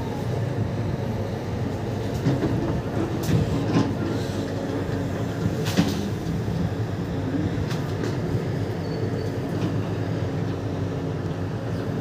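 Hydraulic excavator's diesel engine running steadily under load while it pushes down a big tree, with a few short sharp knocks and cracks along the way.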